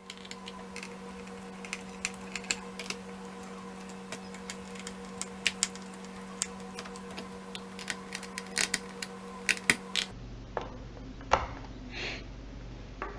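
Irregular light clicks and taps of a small screwdriver driving the screws of a laptop's bottom cover, over a steady electrical hum. The hum stops abruptly about ten seconds in, and a few scattered clicks follow.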